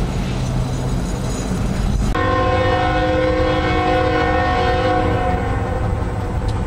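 Freight cars rolling by with a low rumble. About two seconds in, a diesel locomotive's multi-chime air horn sounds one long blast of several notes at once, which fades out about four seconds later over the low rumble of the train.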